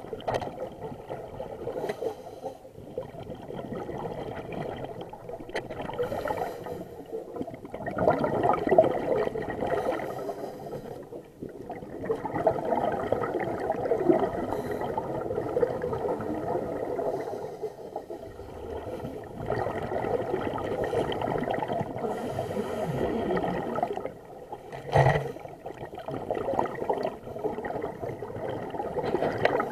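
Scuba diver's regulator breathing, heard underwater: long bursts of rushing, gurgling exhaust bubbles come every several seconds with short lulls between breaths. A single sharp knock comes about 25 seconds in.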